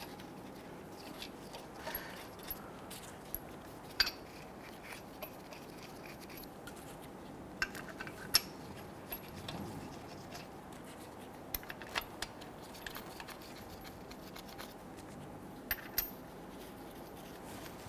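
Lug nuts being started by hand on the wheel studs: faint, scattered metallic clicks and clinks as the nuts are picked up, seated and spun on.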